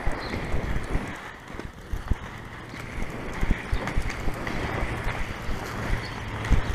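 Inline skate wheels rolling over rough, cracked asphalt, with wind rumbling on the microphone and irregular knocks and clicks as the wheels cross the cracks.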